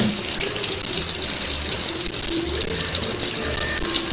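Kitchen faucet running steadily, a thin stream of water splashing into the sink.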